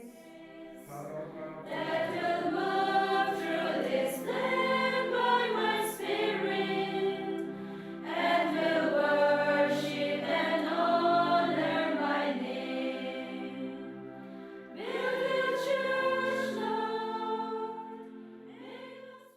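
A choir singing a hymn in three long, sustained phrases, fading away at the end.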